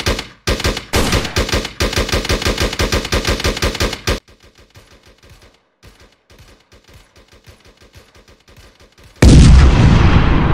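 Rapid automatic gunfire sound effects, loud for the first four seconds, then a fainter stretch of rapid shots. Near the end comes a sudden loud explosion whose rumble dies away slowly.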